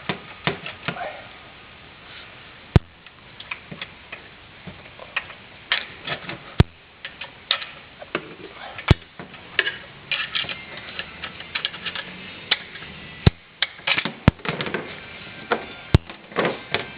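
Hand ratchet clicking in short back-and-forth strokes while tightening a rear brake caliper bolt, with a few sharp metallic clicks between the runs.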